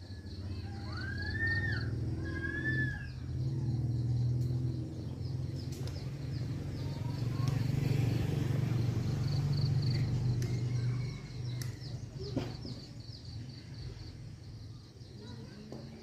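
Village outdoor ambience. A low droning hum swells toward the middle and fades after about eleven seconds. Bird chirps sound in the first few seconds over a steady high insect trill.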